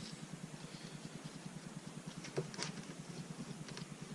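Quiet handling of an oscillating multi-tool and its attachment, with a couple of faint clicks about two and a half seconds in over a low steady hum; the tool is not running.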